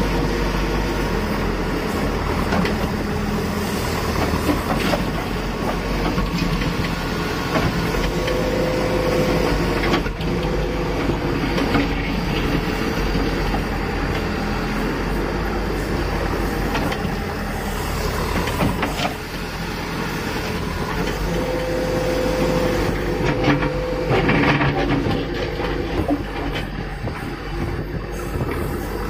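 Terex backhoe loader's diesel engine running under load with its hydraulics working as the backhoe bucket digs into soil and gravel. The engine and hydraulic note swells twice as the arm lifts, with scattered knocks from the bucket and arm.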